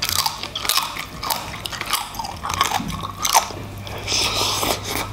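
Crunching and chewing of crispy deep-fried pork: a quick, irregular run of crisp crunches as it is bitten and chewed.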